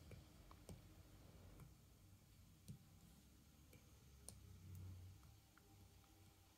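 Near silence with a handful of faint, irregular clicks: an Apple Pencil's tip tapping the iPad's glass screen as colours are picked and dabbed on.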